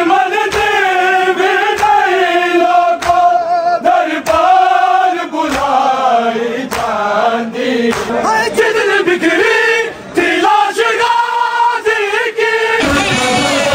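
Men chanting a noha, a Shia mourning lament, together in long drawn-out sung lines with a wavering pitch. Sharp beats fall at a slow, fairly even pace under the singing.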